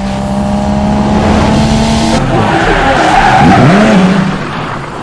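Loud car sound effect: an engine running with tyres skidding, building up and then fading out near the end.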